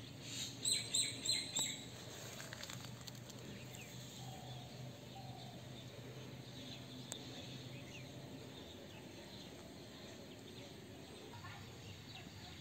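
A bird calling loudly four times in quick succession about half a second in, then faint scattered bird chirps over quiet outdoor background.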